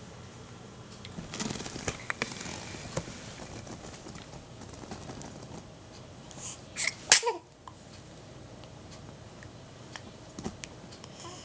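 A sneeze about seven seconds in: two quick short sounds, then one loud sharp burst that falls in pitch and cuts off. Faint breathy sounds and small clicks come before it.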